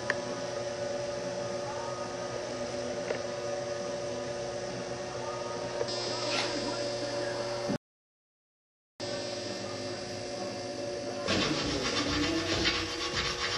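A steady machine hum with several fixed tones, cut off abruptly partway through; when it returns, a louder, busier clatter of noise joins it for the last couple of seconds.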